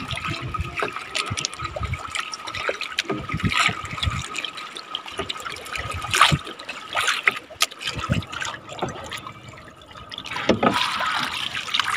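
Water splashing and trickling in irregular bursts, with small knocks, over a faint steady high tone.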